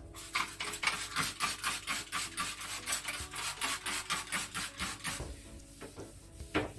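Rapid back-and-forth scrubbing on a surface, about three or four strokes a second, going quieter after about five seconds.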